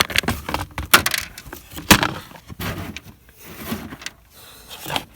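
Irregular clicks, knocks and rattles of the fridge's plastic control panel and tools being handled as the panel is unscrewed and worked free, with sharp knocks about one and two seconds in.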